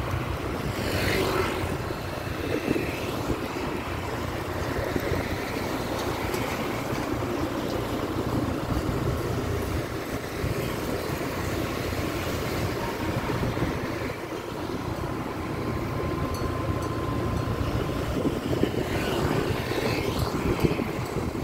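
Steady city street traffic heard from a moving bicycle: a low rumble of engines and tyres, with a vehicle passing close about a second in and another near the end.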